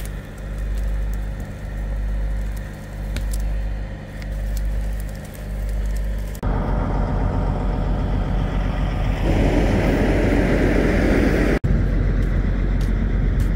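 A truck engine running at the recovery scene, its low hum swelling and fading about every second and a quarter. About six seconds in the sound cuts to louder, steadier engine noise, which grows fuller again near nine seconds.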